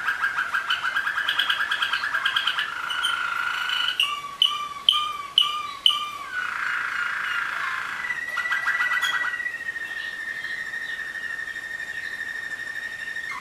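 Waterslager (Malinois) song canaries singing. The song opens with fast trilled rolls, then a run of separate notes about two a second, and from about eight seconds in a long steady whistled note is held.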